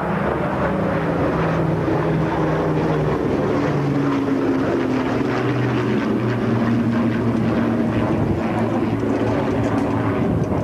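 Piston engines of a B-17 Flying Fortress and a de Havilland Mosquito in a display flypast: a steady propeller drone whose pitch drops about four to five seconds in.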